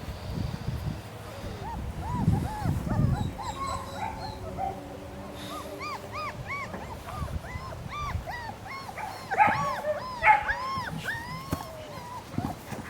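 A litter of three-week-old German shepherd puppies whimpering and squeaking, many short high-pitched calls overlapping, busiest and loudest in the second half. A few low thumps about two seconds in.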